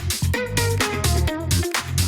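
Electronic dance background music with a steady beat, heavy bass and a bright synth melody.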